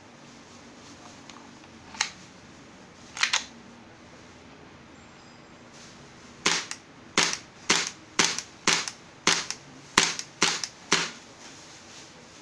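KJ Works CZ75 SP-01 Shadow gas blowback airsoft pistol, fitted with a suppressor, firing. It fires a single shot, then a quick pair, then a string of about nine shots roughly half a second apart, each short and sharp.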